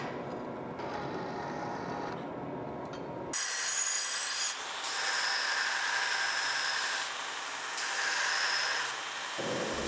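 Metal-cutting band saw running through a steel rod, then a belt grinder grinding steel: a high hiss in about three passes with short pauses between them.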